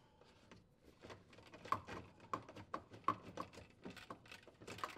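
Light clicking and rattling of the plastic lower wash arm assembly of a GE dishwasher as it is turned by hand and unthreaded from the pump connector: a quick run of faint clicks starting about a second in.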